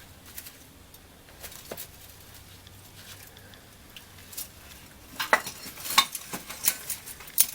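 Light metallic clinks and clatters of metal parts being handled, a few scattered at first, then a quicker run of sharp clanks over the last two or three seconds.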